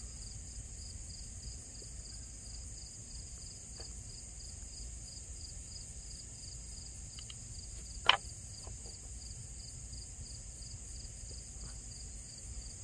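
Outdoor insect chorus of crickets: a steady high-pitched trilling with an even pulsing chirp, over a low steady rumble. A single sharp click sounds about eight seconds in.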